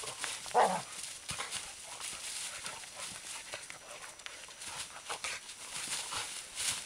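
Entlebucher mountain dogs play-fighting in dry fallen leaves: the leaves rustle and crackle under their paws. About half a second in, one dog gives a short, loud vocal sound.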